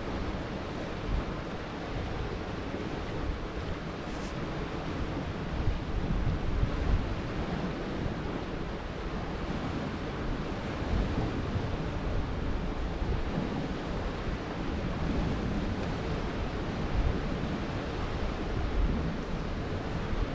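Sea swell washing and breaking against rocks, a steady rushing surf, with wind gusting on the microphone in low rumbles.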